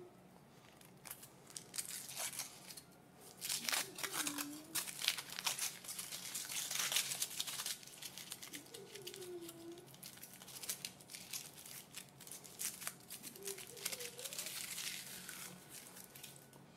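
Foil wrapper of a chocolate surprise egg being peeled off and crinkled by hand, in irregular runs of crackling that are loudest in the middle.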